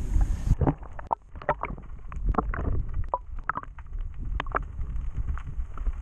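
Water splashing and lapping around a fishing kayak, with many irregular small knocks and clicks over a low rumble.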